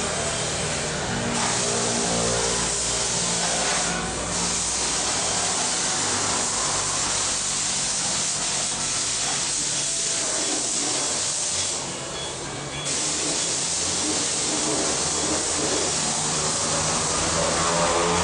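Steady hiss of compressed air from an air-hose tool, breaking off briefly about four seconds in and again about two-thirds through, over a low steady hum.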